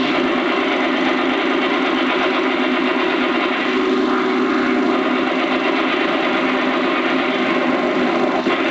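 A steady motor drone running evenly throughout, with no breaks.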